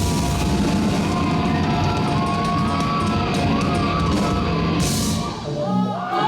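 A heavy rock band playing live, with drums and guitars. There is a bright crash about five seconds in, and then the music drops away near the end.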